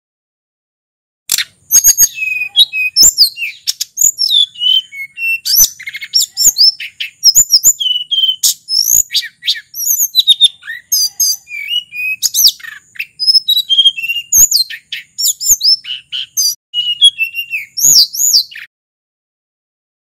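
A hill blue flycatcher (tledekan or sulingan gunung) sings a long, rapid run of varied, sweeping whistled phrases broken by sharp ticks. The song starts about a second in and stops shortly before the end.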